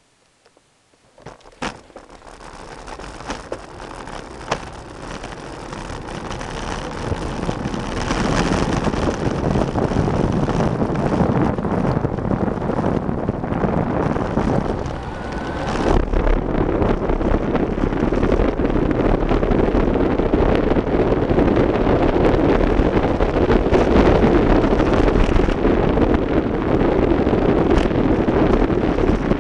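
Wind rushing over the microphone of a camera on a bicycle descending a mountain pass, building steadily as the bike gathers speed. It follows a moment of near silence and a few sharp clicks near the start, and a deeper rumble joins in about halfway through.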